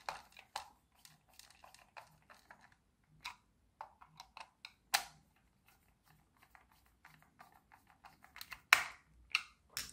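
Small screwdriver turning a screw into a plastic toy remote-control case: a run of light clicks and ticks, with a sharper click about halfway through and a few louder clicks near the end.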